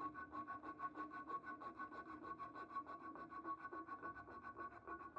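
A strip of abrasive cloth pulled rapidly back and forth around a wooden knife handle, shoeshine-style: a fast, even rasping rub at several strokes a second, with a steady tone running through the strokes.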